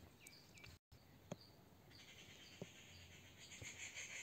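Near silence: faint room tone with small, high chirps repeating every half second or so and a few soft clicks.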